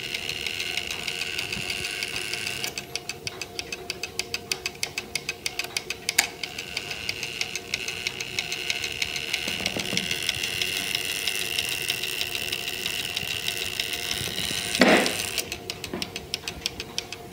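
Brass chiming clock movement running on a test stand, its mechanism clicking rapidly and evenly at about five clicks a second in two stretches. A single louder clunk comes about fifteen seconds in.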